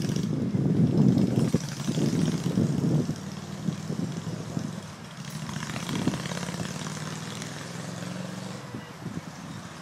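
Moped engine running on the move. It is louder and fluttering for the first three seconds, then settles to a quieter, steady hum.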